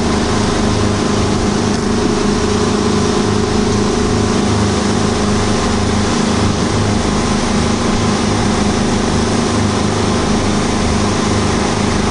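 Speedboat engine running steadily at cruising speed, a low throbbing hum, under the constant rush of water churned up in the wake.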